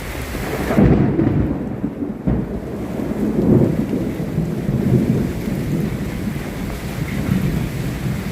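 Steady rain with rolling thunder, the rumble swelling about a second in and again a few times through the middle.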